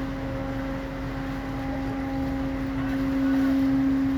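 Ship's machinery running, a steady drone with a constant hum over a low rumble.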